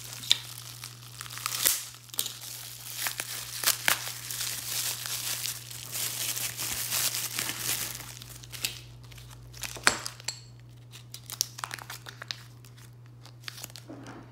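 Bubble wrap and a plastic sleeve crinkling and tearing as they are pulled open by hand, dense for the first half. In the second half the crinkles grow sparser, with a few sharp clicks as silver rounds are handled in their plastic sleeve.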